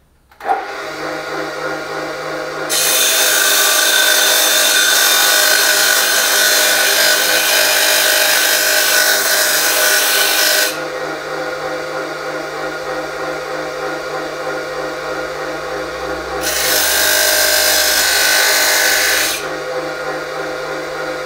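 An abrasive cut-off saw starts up about half a second in and runs steadily. An aluminium beer can's rim is ground against the spinning disc twice: a long harsh grinding pass of about eight seconds, then a shorter one of about three seconds, with the motor running freely in between. The rim is being worn through so the can's lid comes off.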